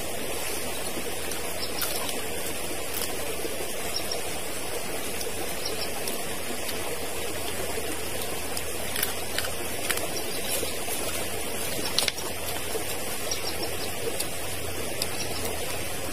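A forest stream running steadily, with a few faint clicks over it and one sharper tap about twelve seconds in.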